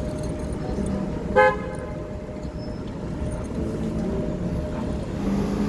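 A car horn gives one short toot about a second and a half in, over the steady rumble of idling and creeping city traffic.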